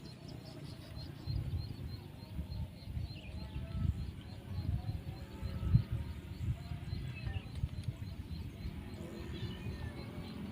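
Outdoor ambience with irregular low rumbling and faint high bird chirps and calls.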